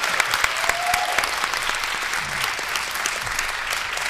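Audience clapping hard and steadily, with one brief whoop about a second in.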